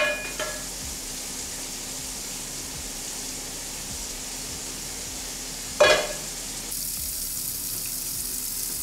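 Kitchen sink faucet running steadily, left on until the tap water runs hot, its rush getting a little brighter about seven seconds in. A ringing clink of a dish or utensil comes at the start and another about six seconds in.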